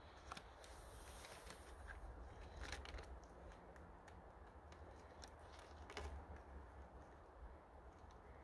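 Faint rustling and scratchy clicks of hands pulling and tying a string lashing around a bark-covered log, with a couple of sharper clicks about three and six seconds in.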